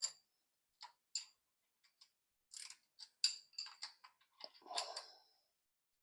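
Light metallic clicks and taps from hand tools and bolts while a starter is being bolted up. They are scattered at first and bunch together past the halfway point, with a short scrape about five seconds in.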